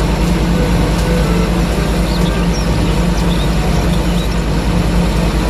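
Diesel engine of a truck-mounted loader crane running steadily, with an even low pulse.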